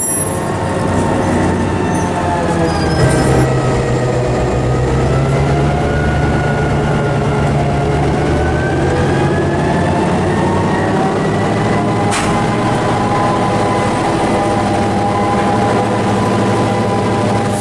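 EMD GP16 diesel locomotive passing close at low speed, its diesel engine running steadily. The engine note steps up slightly about three seconds in.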